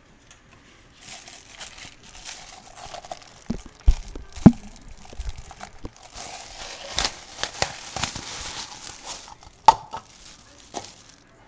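Rustling and handling noise with a few sharp knocks; the two loudest knocks come about four seconds in and another near the end.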